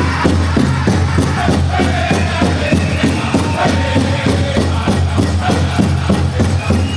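Powwow drum group singing a chicken dance song over a fast, steady beat on a big drum.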